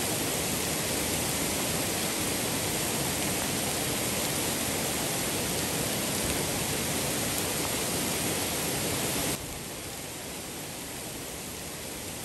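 Steady rain pouring onto leafy shrubs: an even hiss that drops suddenly to a quieter hiss about nine seconds in.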